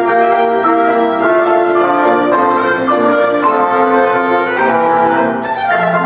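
Live chamber ensemble of violin, clarinet, trombone, piano and mallet percussion playing silent-film music, with the violin carrying the melody. The sound eases off briefly near the end as a phrase closes.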